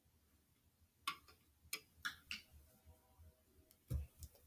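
Small toys being handled on a tabletop: a few light, sharp clicks and taps, then a duller thump near the end as the plush toy is picked up.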